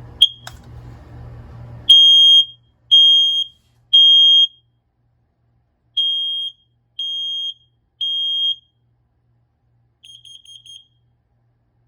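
BRK SC6120B ionization smoke alarm sounding a test. A short beep comes as the test starts, then two rounds of three loud, high-pitched beeps with a pause between (the temporal-three alarm pattern). Near the end comes a quick run of fainter short chirps.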